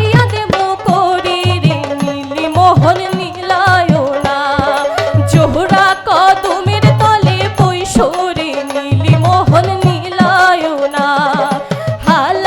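Bhawaiya folk song: a wavering, gliding sung melody over a steady, regular hand-drum beat.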